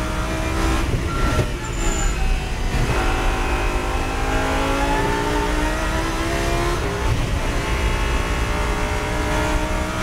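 Lamborghini Super Trofeo race car's V10 engine heard from inside the cockpit at racing speed. About a second in it lifts and downshifts from fourth to third. It then accelerates hard in third with the pitch rising steadily. Near seven seconds it upshifts to fourth, and the pitch drops and climbs again.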